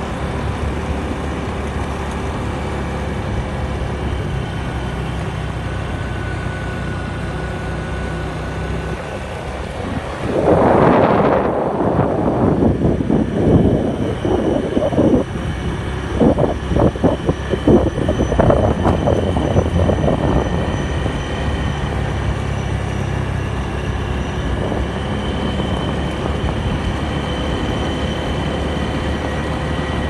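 A vehicle's engine running steadily while driving along a road. From about ten to twenty seconds in, a louder, rough, uneven noise rises over it, then fades back to the steady running sound.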